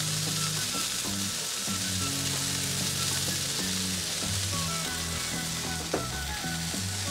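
Butter and beef patties sizzling steadily on a hot Blackstone steel flat-top griddle as a stick of butter is rubbed across the cooking surface. One light knock about six seconds in.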